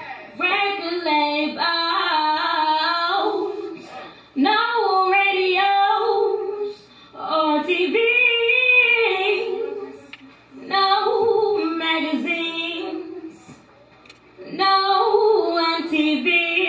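A woman singing solo into a microphone, unaccompanied, in five long sung phrases with short breaks for breath between them.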